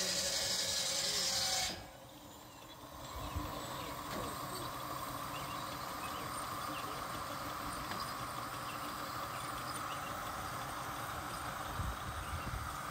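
Steam engine blowing off steam in a loud, steady hiss that cuts off abruptly under two seconds in, leaving a quieter steady machine sound with a few faint knocks.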